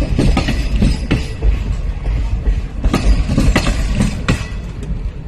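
Passing train: wheels clattering over the rail joints, with a heavy rumble and an irregular run of sharp knocks.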